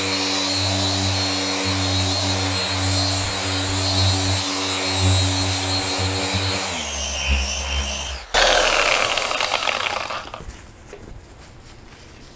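Porter Cable dual-action polisher with a foam finishing pad running steadily on car paint, polishing out compounding marks; its pitch drops slightly about seven seconds in and it stops about eight seconds in, followed by a brief hiss.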